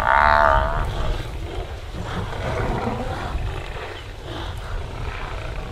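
A lion growling: one loud growl of under a second at the start, then quieter growls over a steady low rumble.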